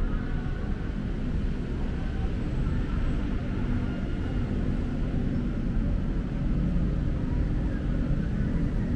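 Steady low rumble of city traffic, with no sudden events.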